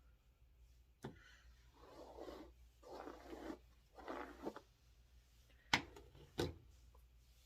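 Bristle brush rubbing over wig hair in three strokes, flattening hair set with wax stick. A light click comes about a second in, and two sharp knocks, the loudest sounds, follow near the end.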